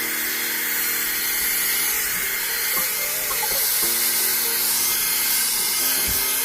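Handheld electric hair dryer blowing steadily, a loud, even rushing hiss of air.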